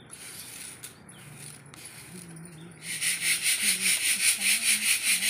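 Grain rustling in a round metal sieve being worked by hand: soft rubbing and hissing at first, then about three seconds in loud rhythmic swishes, about four a second, as the sieve is shaken back and forth to sift the grain.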